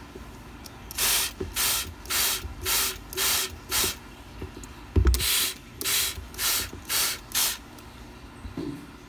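Hand trigger spray bottle misting water, pumped in quick short sprays about two a second, with a pause in the middle and a single low bump about five seconds in.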